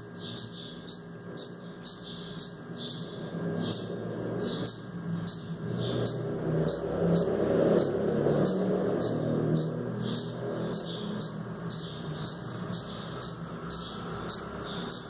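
Cricket chirping steadily, about two short chirps a second, the sound made by rubbing its wings together.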